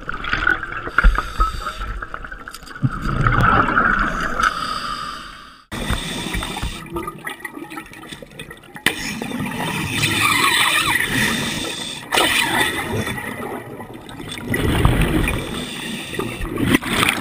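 Scuba breathing underwater through a regulator: the rushing bubble noise of exhalations comes in repeated swells. It cuts off abruptly about six seconds in, then the swells resume.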